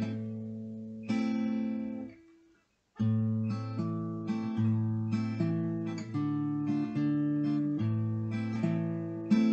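Acoustic guitar fingerpicked on an A minor chord: the thumb plays bass notes on the A and D strings, alternating with the index, middle and ring fingers pinching the G, B and high E strings together. Two slow strokes, a short pause about two seconds in, then a steady run of bass-and-chord strokes.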